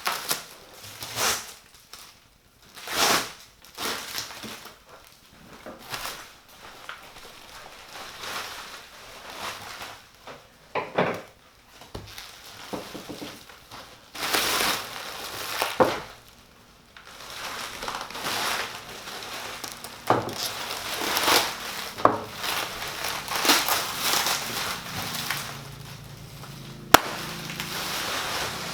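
Cardboard box and packing material of a PC case being opened and handled: irregular rustling, crinkling and scraping in bursts, with one sharp click near the end.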